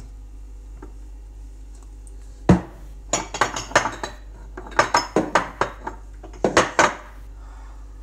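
Crockery and cutlery clattering as they are handled: one sharp knock about two and a half seconds in, then quick runs of clinks and rattles.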